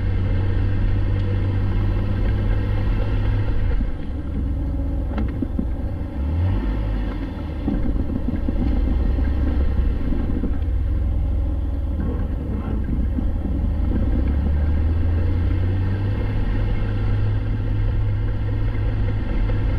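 Jeep Wrangler driving, its engine running with a steady low drone that eases briefly about four seconds in and again around seven seconds.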